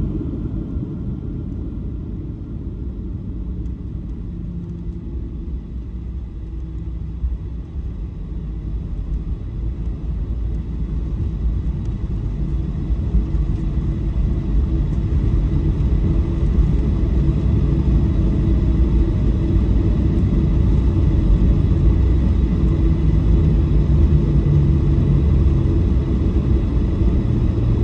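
Cabin noise inside a Boeing 737-700, heard from a window seat near the front: a steady low rumble of the CFM56-7B engines and airframe. It grows clearly louder from about eight seconds in and stays at that level.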